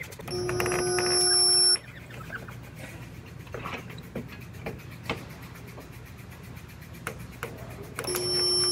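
Resistance spot welder making spot welds on the car's body sheet steel: a steady electric hum of about a second and a half while the weld current flows. Scattered clicks and knocks follow as the electrode gun is moved along the flange, and a second weld hum starts near the end.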